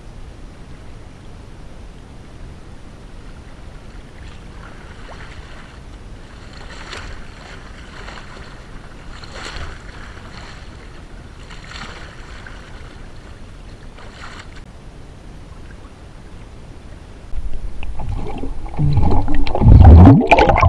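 Water in an ice hole being splashed by hand, a few soft splashes about two and a half seconds apart. Near the end it turns into loud churning and bubbling as the bather plunges under and the camera goes underwater with him.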